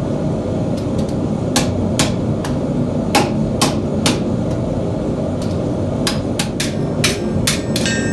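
Hand-hammer blows on a hot 10-gauge mild steel plate, rounding and cupping it into a fish body. The strikes come in uneven quick runs, with a pause about halfway through, over a steady low rumble.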